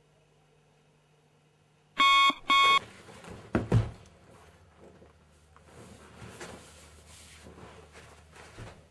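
Digital alarm clock beeping twice, two short loud beeps about half a second apart. They are followed by a pair of low thumps and the rustling and shuffling of a person getting up out of a leather recliner.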